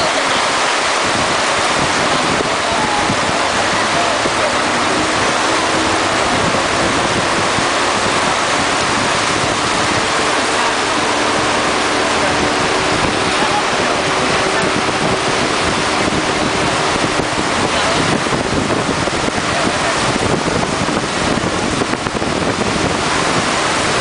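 Steady rushing noise of a motorised river longboat under way in heavy rain: water washing and spraying along the hull, with wind on the microphone. A faint steady hum sits beneath it through the middle.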